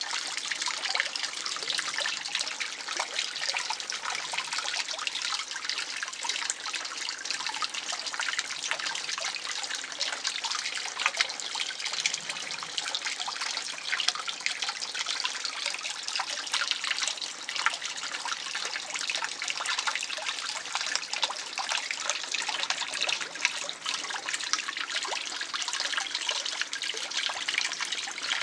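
Water trickling and splashing steadily into a garden fish pond, a dense even patter of small splashes.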